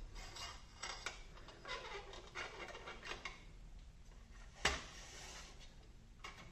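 Steel T-handle hex keys clicking and clattering as they are pushed into their holder. There is a quick run of light clicks, then one louder knock past the middle.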